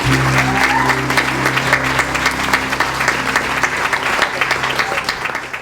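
Congregation applauding, many hands clapping steadily, fading out near the end.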